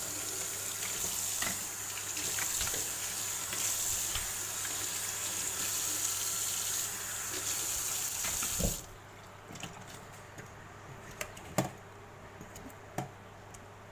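Kitchen tap running into a stainless steel sink as crabs are rinsed under the stream. The water is shut off suddenly about nine seconds in, followed by a few light clicks and knocks at the sink drain.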